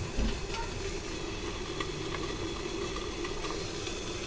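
Steady hiss and rumble of a pot of hot water steaming on a gas burner under a stainless-steel steamer plate, with a few faint clicks of the steel as the rolls are set on it.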